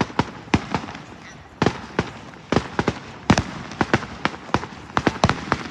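Fireworks going off: an irregular string of sharp cracks and bangs, some coming in quick clusters.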